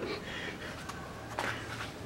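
Faint handling sounds as a car starter motor is set down on cardboard: a soft knock about one and a half seconds in, with a few light clicks around it.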